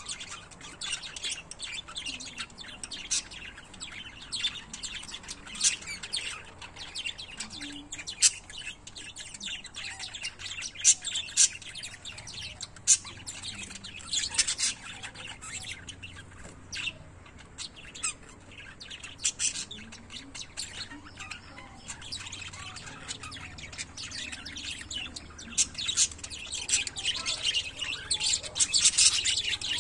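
Small pet parrots chirping continuously in quick high notes, with louder spells midway and near the end.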